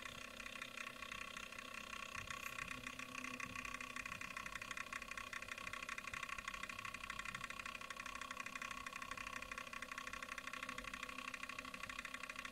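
Small electric motor and gears of a rotating display turntable running, a steady whir with a fine, rapid, even rattle.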